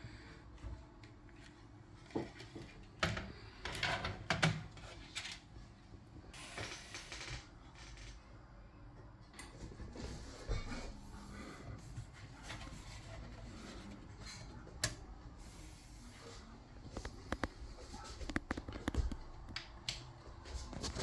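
Hands handling desktop PC hardware: scattered clicks and taps with a few short bursts of rustling, busiest around three to four seconds in.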